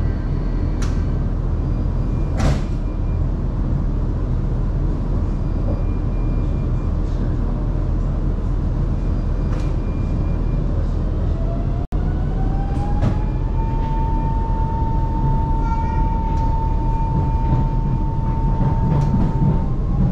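Metro train running with a steady low rumble and a few sharp clicks. About halfway through, an electric whine rises in pitch, then holds steady as the train pulls away.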